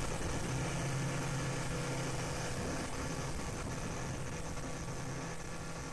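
Fishing boat's engine running steadily at speed while under way, with the rush of water and wind over it.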